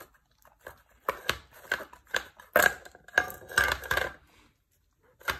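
Husky licking and nosing tuna out of a small metal tin, the tin clinking and scraping against a wooden floor in a run of irregular clatters, loudest between about one and four seconds in, with one more clink near the end.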